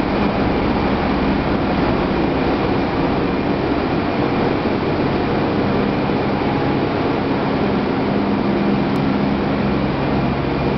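Corn wet-milling processing machinery running: a loud, steady industrial din with a constant low hum.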